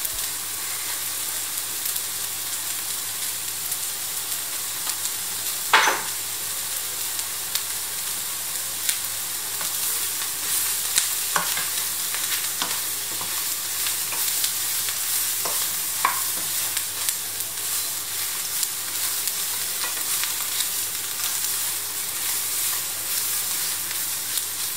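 Chicken pieces and onions sizzling hard in hot oil in a frying pan while a wooden spatula stirs them. There are occasional sharp knocks of the spatula against the pan, the loudest about six seconds in.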